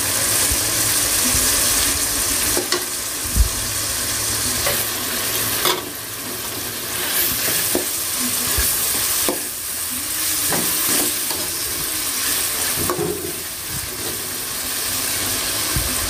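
Chopped tomatoes, garlic, green chillies and curry leaves sizzling steadily in hot oil in a metal kadai. They are stirred with a perforated metal ladle that scrapes and knocks against the pan every few seconds.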